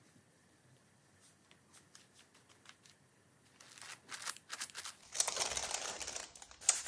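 Faint taps as fingertips press a glued fabric doily onto a journal page. From about halfway, the stiff page rustles as it is lifted and turned, and a cloth wipes at it to take off glue that has seeped through.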